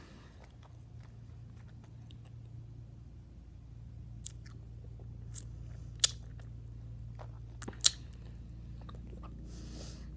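A mouthful of bubble gum (three pieces of Hubba Bubba) being chewed and worked with the tongue and lips: scattered soft wet clicks and smacks, with two sharper smacks about six and eight seconds in. Near the end comes a short breathy puff as she tries to blow a bubble.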